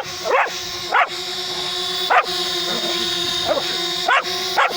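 A dog barking about six times at irregular intervals, short sharp barks, over the steady high hum of a DJI Spark mini drone's propellers hovering close by.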